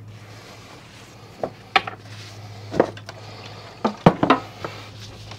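Hand-handling noises on a wooden workbench: a paper towel rustled and a metal acetone can taken up and opened, giving a handful of light knocks and clicks, the loudest cluster about four seconds in. A steady low hum runs underneath.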